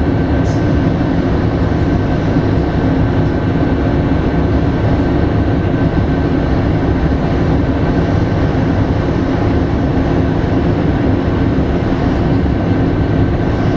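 Passenger train running steadily, heard from inside the carriage: a continuous rumble of wheels on rail with a steady drone.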